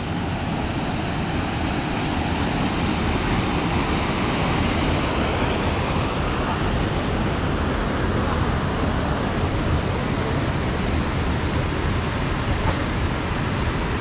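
Steady rushing of water spilling over a small concrete weir into the pool below.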